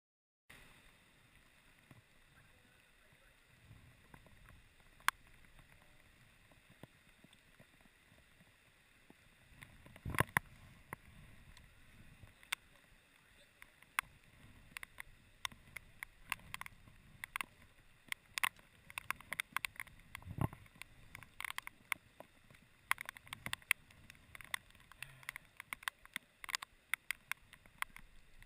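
Raindrops striking a GoPro's waterproof housing as irregular sharp ticks that grow denser in the second half, over a steady rush of river water. Two heavier thumps, about ten and twenty seconds in.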